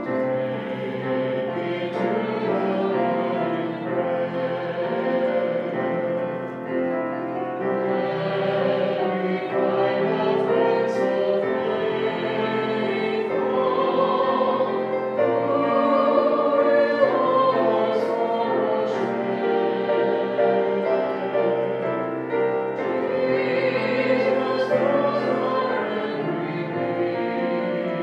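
Singing accompanied by a grand piano: slow, sustained notes with a wavering vocal line and no break.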